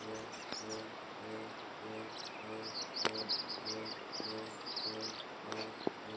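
A bird chirping in quick high runs for a few seconds, over a low humming tone that pulses evenly about one and a half times a second, with a couple of sharp clicks.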